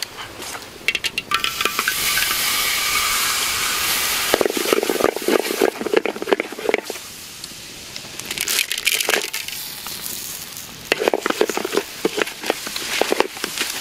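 Hot oil sizzling in a large metal wok, with a wooden spoon scraping and clattering against the pan in two spells of stirring. Aromatics such as lemongrass and ginger are stirred through the hot oil near the end.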